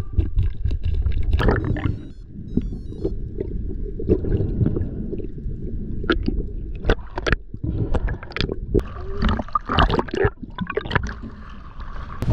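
Underwater sound: water gurgling and bubbling around the camera, with irregular sharp clicks and knocks, in louder clusters in the second half.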